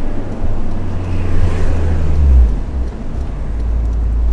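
Honda S2000 AP1's F20C four-cylinder engine pulling under acceleration, its note climbing and getting louder. About two and a half seconds in the revs drop, and it settles into a lower, steady drone. It is heard from inside the open-top cabin, with road noise.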